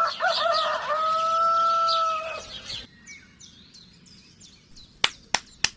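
A rooster crowing once, one long call that holds steady at the end, with small birds chirping around it. After the crow, fainter bird chirps continue and a few sharp clicks sound near the end.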